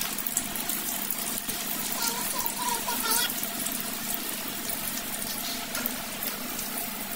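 Potato fries deep-frying in hot oil, a steady sizzle and bubbling as a wire skimmer stirs them.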